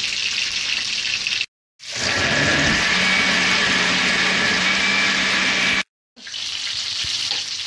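Countertop blender motor spinning up and then running steadily, liquefying cooked tomatillos with their cooking water for salsa verde, and stopping suddenly. Before and after it, a steady hiss from simmering pots on the stove.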